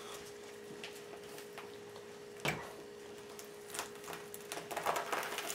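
Mink pelt being pulled and peeled inside out off the carcass: soft, wet squishing and crackling that gets busier in the last second or two, with one sharp click about two and a half seconds in. A faint steady hum sits underneath.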